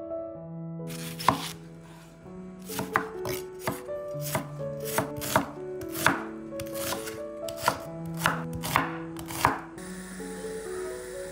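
Chef's knife slicing an onion on a wooden cutting board: about fifteen crisp, irregularly spaced chops that begin about a second in and stop shortly before the end.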